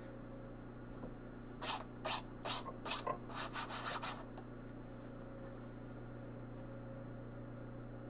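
About eight quick rubbing strokes over a couple of seconds, starting nearly two seconds in, over a steady low hum.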